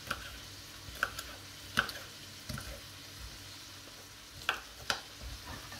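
Chef's knife slicing a green bell pepper into strips on a wooden cutting board: a few sharp, irregularly spaced taps as the blade meets the board.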